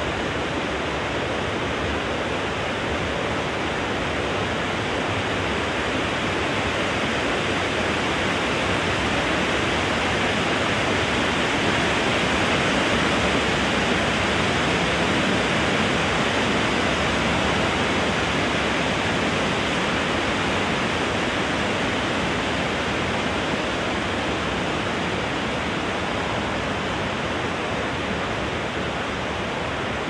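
Wind blowing steadily through trees, swelling a little about halfway through and easing off again.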